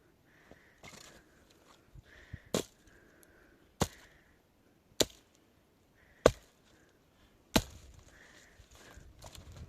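Five sharp, evenly spaced blows about a second and a quarter apart, like chopping with a tool.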